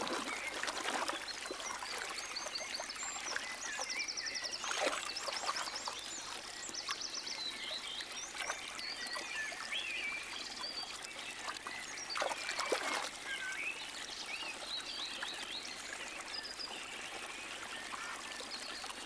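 A small, fast woodland stream trickling and splashing steadily, with short high chirps scattered through it. There are two louder splashy rushes, about five and about twelve seconds in.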